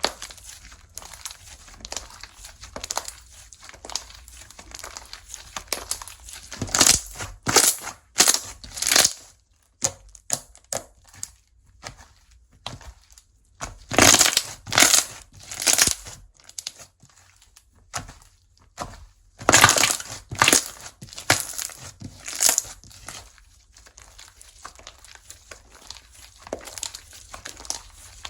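Slime being squeezed and pressed by hand, giving short crackling pops and squelches that come in several clusters of bursts, the loudest about a third, halfway and two-thirds of the way in.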